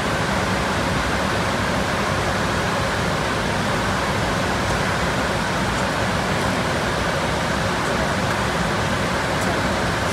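Steady rushing cockpit noise of a Dornier 328Jet twin-turbofan regional jet in flight: airflow over the flight deck blended with engine hum, even and unbroken.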